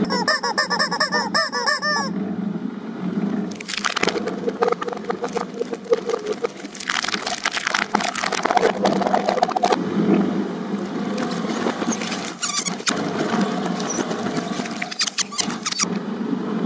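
Rubber chickens squawking in quick repeated squeals for about two seconds. Then a twin-shaft shredder grinds and crunches through rubber and plastic toys, with many sharp cracks over the machine's steady hum.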